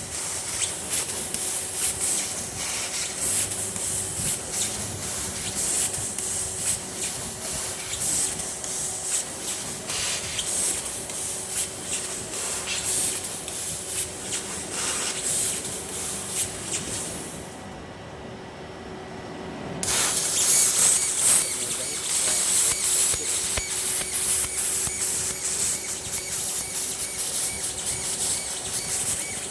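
CNC cutting machine cutting 1.5 mm type 201 stainless steel sheet: a steady hiss with fine crackling over a low steady hum. The hiss cuts out for about two seconds a little past halfway, then starts again louder.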